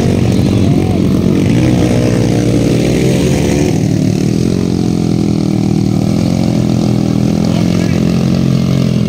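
Motorcycle engine running and revving unevenly at low to middling revs, its pitch wavering as the throttle is worked, on a dirt bike bogged in deep mud and being pushed by helpers.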